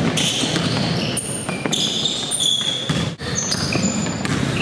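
Basketball game in a gym: sneakers squeaking in short, high chirps on the hardwood floor while the ball bounces, all echoing in the hall.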